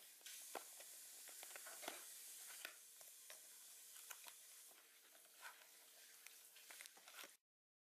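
Small paperboard toy box handled and opened by hand: its end flap is pried up with rustling, scraping and many small clicks as the packaged toy car is slid out. The sound cuts off abruptly near the end.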